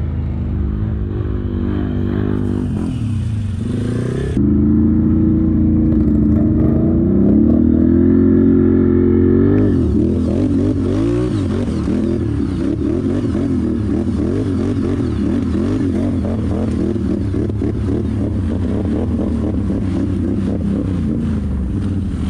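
ATV engines running: a steady drone for a few seconds, then revving up and down unevenly.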